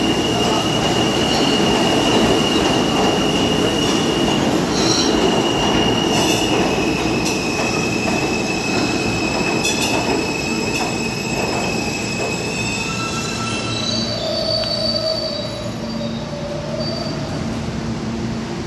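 New York City Subway R160B train with Alstom propulsion moving along the track, its steel wheels rumbling under a high, steady wheel squeal. About two-thirds through the squeal stops and the rumble eases, leaving a few lower steady tones.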